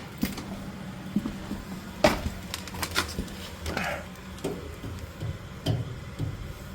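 Boiler burner running with a steady low hum, with scattered clicks and knocks of handling about every second or two.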